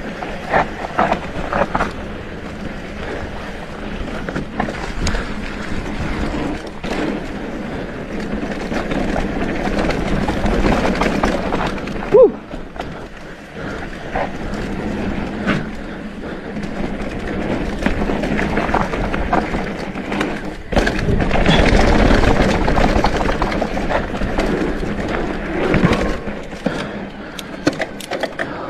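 Mountain bike rolling fast over a dirt trail: knobby tyres on dirt with constant rattling and clicking from the bike over bumps. About twelve seconds in, a short squeak and a loud knock, and the rumble grows louder over rougher ground later on.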